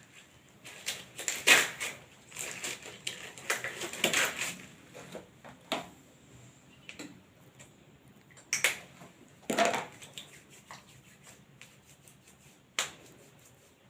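Hand hygiene after a nursing procedure: irregular rustling, clicks and snaps of hands cleaning themselves, likely rubbing in hand sanitizer, busiest in the first few seconds, with a few sharper clicks later on.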